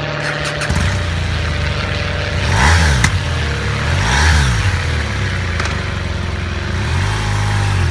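BMW R1200RT's boxer-twin engine idling, its throttle blipped twice about a second and a half apart, each rev rising and falling back to idle.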